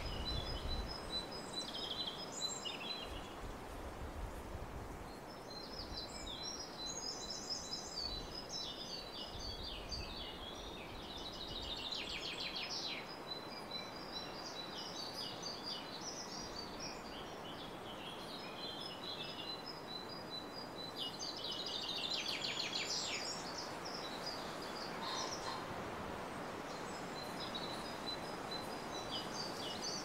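Small songbirds twittering and trilling, high-pitched, on and off, including runs of fast repeated short notes, over a steady outdoor background hiss.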